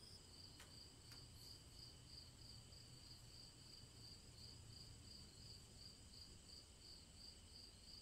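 Faint crickets chirping steadily, a high trill that pulses a few times a second.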